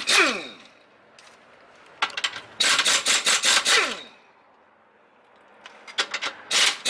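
Impact wrench hammering in short bursts, loosening the rear differential's mounting bolts. A short burst at the start winds down in pitch, a run of about two seconds comes in the middle, and another burst comes near the end.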